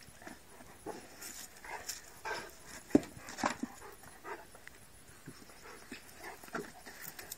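Rottweiler panting close to the microphone in short, irregular breaths, with a sharp knock about three seconds in.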